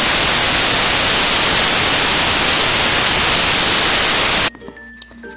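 Loud, even white-noise static that cuts off suddenly about four and a half seconds in, breaking into the voice mid-sentence: a digital glitch in the recording or file.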